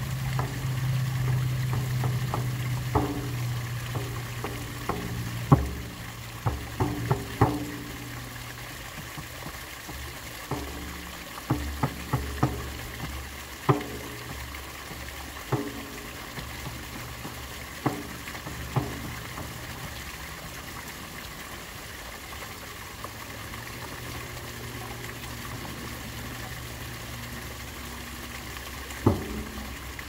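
Steady splashing of water pouring from a culvert pipe into a stream, with a low hum for the first few seconds. Over it come scattered single drum strikes that ring with a short pitched tone, some in quick clusters, then a long gap before a few more near the end.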